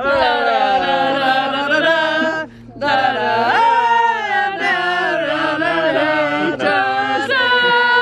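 Singing: long, wavering sung notes in phrases, breaking off about two and a half seconds in and again near seven seconds, over a steady low hum.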